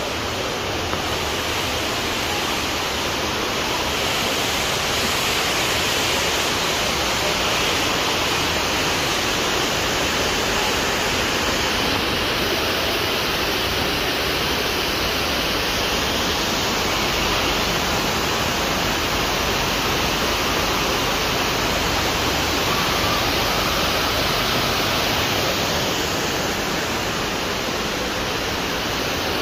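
Steady rush of water pouring over the dam and the rocks below it.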